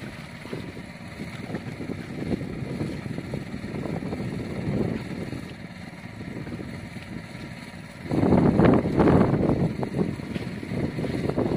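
Wind buffeting the microphone: an uneven low rumble that gusts much louder about eight seconds in.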